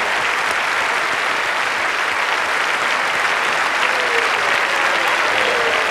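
A large audience applauding steadily: a dense, even wash of many hands clapping.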